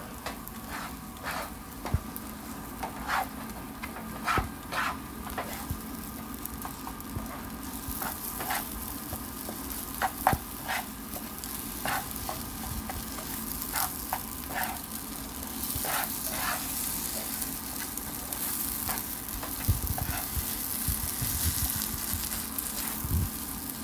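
Scrambled eggs stirred and scraped around a nonstick skillet with a plastic slotted spatula: irregular scrapes and taps over a frying sizzle that grows louder about two-thirds of the way through.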